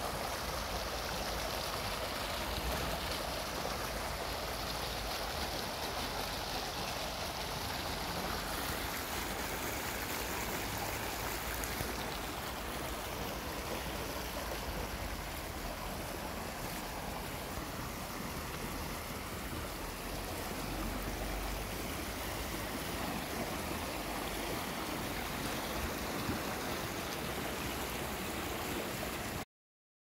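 Fast stream water rushing and splashing over low concrete weirs, a steady rushing that stops abruptly near the end.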